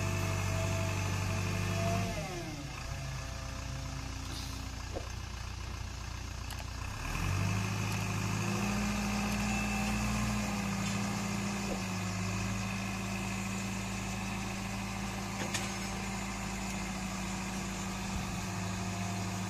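Diesel engine of a self-loading concrete mixer running under load as the machine drives up onto a flatbed truck. The revs drop about two seconds in, then rise again around seven seconds in and hold steady.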